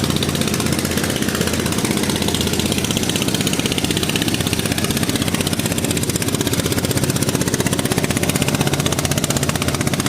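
OXE 200 diesel outboard engine running steadily with an even, fast pulse.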